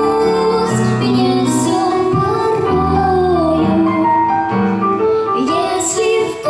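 A girl singing a jazz-blues song with piano accompaniment, her voice wavering around held notes over sustained low piano chords.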